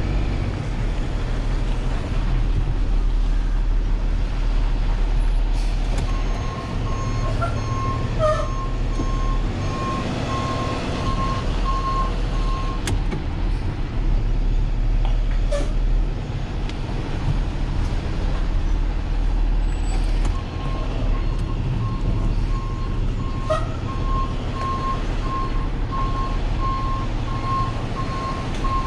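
Flatbed tow truck's engine running as it manoeuvres, heard from inside the cab, with its reversing alarm beeping in a steady series, first from about six to twelve seconds in and again from about twenty seconds on. A few short clicks and hisses fall in between.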